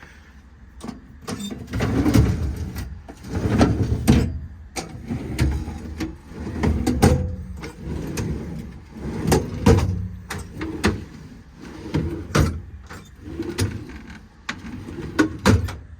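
Metal drawers in a truck service-body compartment being rolled open and shut on ball-bearing slides over and over, each run a short rumble ending in a sharp clack.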